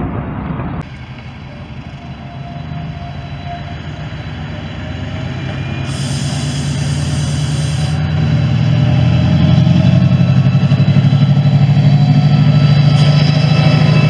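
Diesel locomotives approaching and passing close by. Their engines' deep, pulsing hum grows steadily louder over the first several seconds and stays loud as the leading locomotive draws alongside.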